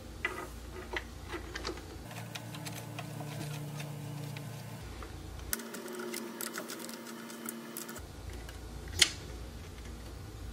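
Small clicks and taps of metal hardware being fitted by hand into a pine crib rail, with one sharp click about nine seconds in.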